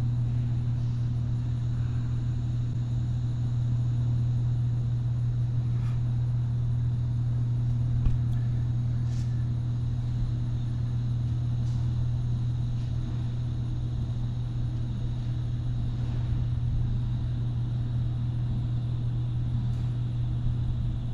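A steady low machine hum with no change in pitch, with a few faint ticks over it.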